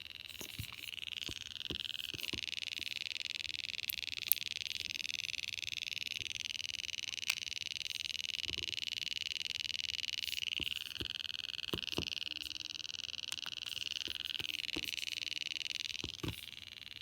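GoPro Hero 4 action camera giving off a rapid, continuous electronic ticking while on charge, a fault that stops only when its battery is removed. The ticking starts about a second in, shifts in pitch a couple of times, and cuts off shortly before the end.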